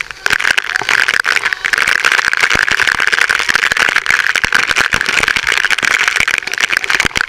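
Waterfall water pouring straight onto the camera: a loud, dense rattling patter of drops striking the housing over a steady rushing hiss of falling water.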